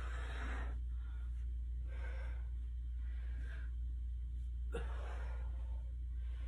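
A woman breathing hard from exercise, with about four forceful exhalations a second or two apart, over a steady low hum.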